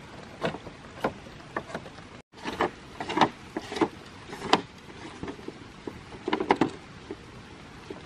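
Hollow green bamboo poles knocking and clacking against one another as they are shifted and pressed into place, in irregular clusters of sharp knocks over the steady sound of running water.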